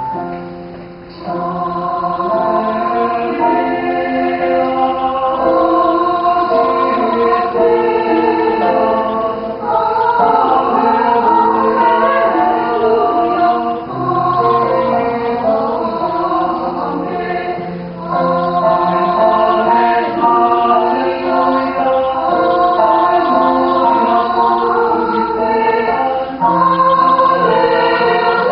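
Mixed choir of men's and women's voices singing a hymn in several-part harmony, coming in about a second in and singing on with held chords.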